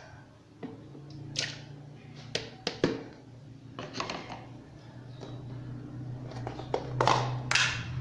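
Scattered light taps and knocks of a bowl, spoon and tub being handled on a kitchen counter around a blender jar, the two strongest near the end, over a faint steady low hum.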